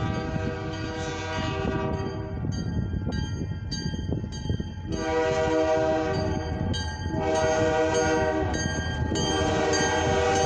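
Locomotive air horn blowing four long blasts for the grade crossing as the freight train approaches; the last blast is still sounding at the end. Between blasts the crossing-signal bell dings steadily about twice a second over the rumble of the train.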